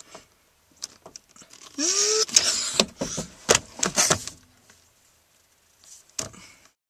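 A car's steering wheel held by its steering lock being yanked back and forth, with the key jiggled in the ignition. A short rising squeak about two seconds in, then a run of sharp clicks and rattles for about two seconds, and one more knock near the end.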